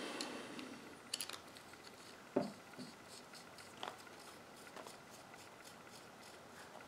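Faint handling of a Swiss rifle cleaning rod's steel sections with brass fittings as they are screwed together: a few light clicks and taps, the loudest about two and a half seconds in.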